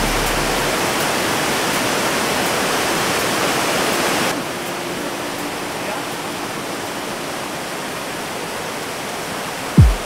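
Water of a tiered waterfall rushing steadily over rock terraces. About four seconds in it drops in level and loses some of its hiss. Just before the end a loud low thump slides down in pitch.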